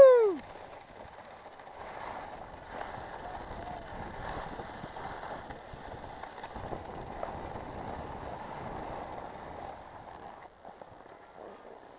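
Skis hissing and scraping over packed, tracked snow, with wind rushing over the helmet camera's microphone, steady until it drops lower about ten seconds in. At the very start the tail of a loud held shout falls in pitch and cuts off.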